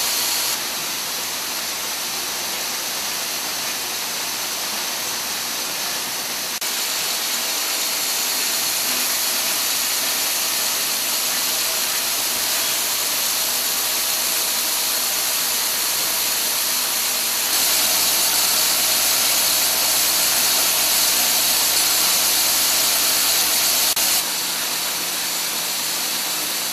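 Syringe production machinery running: a steady hissing machine noise with no distinct beat, which jumps up or down in level a few times.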